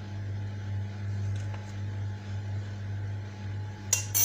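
A steady low electrical hum, like a running kitchen appliance, with a couple of sharp metallic clinks of kitchen utensils near the end.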